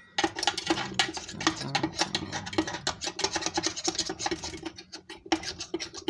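Metal spoon scraping and tapping ground freeze-dried strawberry powder out of a coffee grinder's metal bowl, in quick, irregular strokes.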